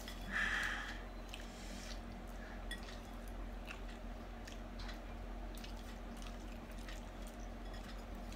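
Faint eating sounds: chewing, with light scattered clicks of a plastic spoon against a glass bowl. A brief hiss comes about half a second in, over a steady low hum.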